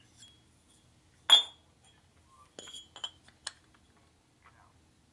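Metal clinks from an outside micrometer being worked against a cast piston while it is measured. One sharp, ringing clink comes about a second in, followed by a short cluster of lighter clicks and clinks about halfway through.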